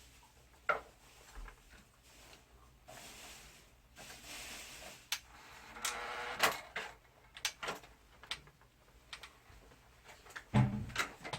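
Hard plastic parts of a wall-mounted air conditioner being handled during disassembly: scattered clicks and knocks, a stretch of scraping in the middle, and a heavier thump near the end.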